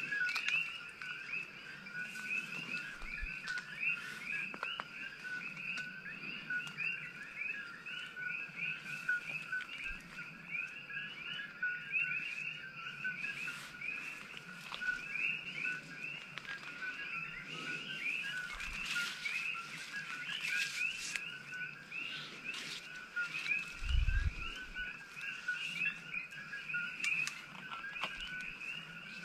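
Dense chorus of many coqui frogs calling, their two-note "ko-kee" calls overlapping without a break. Leaves and brush rustle now and then from movement through the undergrowth, and a dull thump comes near the end.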